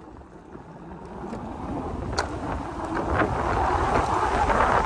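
Wind buffeting the microphone and tyres rumbling on a dirt trail, growing steadily louder as a CS20 electric dirt bike accelerates under its hub motor's torque.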